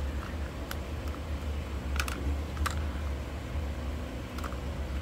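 Scattered sharp clicks and ticks of the back massager's plastic housing being handled and pried open as its cover comes off, with a quick cluster about two seconds in. A steady low hum runs underneath.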